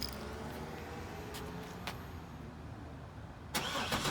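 Quiet background with a few faint clicks, then about three and a half seconds in a click and a brief starter crank of the Trailblazer SS's 6.0-litre LS2 V8 on a cold start, just before it fires.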